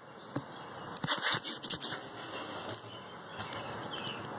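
Handling noise from the recording phone as it is moved and set in place: a click near the start, then a cluster of scratchy rubbing and scraping about a second in, with a few lighter knocks after.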